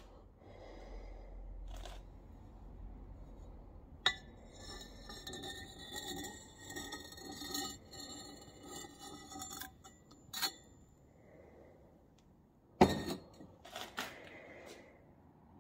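Steel tube retort being taken apart: several seconds of squeaky metal-on-metal scraping and clinking as the tube is worked off its cup, then two sharp clanks near the end.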